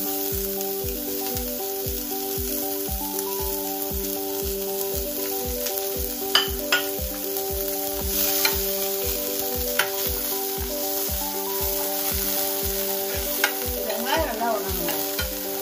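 Chopped shallots sizzling steadily in hot ghee in a stainless steel frying pan as they start to fry. A spoon stirs them, with a few sharp clicks against the pan. Background music with a steady beat plays under it.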